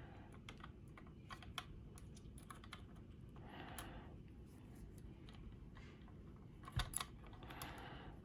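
Faint, scattered small clicks and light scrapes of lock picks and a tension wrench working in a small cam lock, with one sharper click a little before 7 s.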